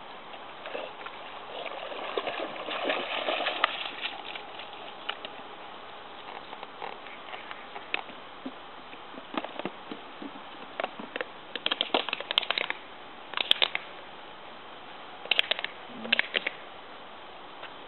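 Water sloshing and splashing around a swimming dog for the first few seconds, then several short clusters of rustling crackles from footsteps pushing through tall dry grass.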